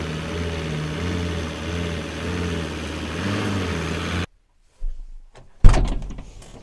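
Volkswagen LT van's engine running steadily at low revs as the van creeps forward slowly; the sound cuts off abruptly about four seconds in. Near the end there is a single loud thump.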